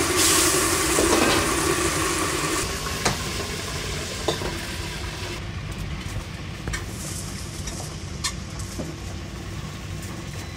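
Hot frying oil sizzling and hissing as it is ladled over and drains through deep-fried chicken in a perforated strainer, re-crisping the skin. It cuts off after a couple of seconds. A few sharp knocks follow, a knife cutting through the crisp chicken onto a cutting board, over a steady low kitchen rumble.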